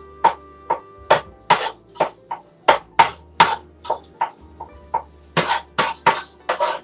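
Knife chopping food on a cutting board: quick, uneven strokes, about three a second, with quiet background music underneath.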